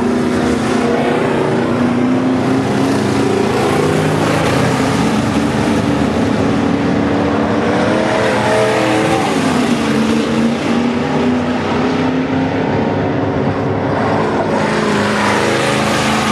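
Several V8 dirt-track stock cars racing together in a pack, their engines overlapping and rising and falling in pitch as they rev and lift off.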